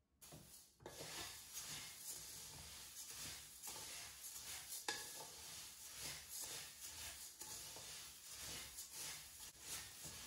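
Dry puffed rice being stirred and turned with a wooden spatula in a metal kadai as it toasts on medium heat: a continuous rustling scrape of the grains against the pan, with a sharp click about halfway through.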